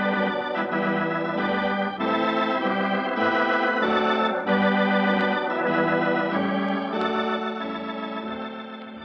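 Organ music bridge marking the act break of a radio drama: sustained chords that change every second or two, fading toward the end.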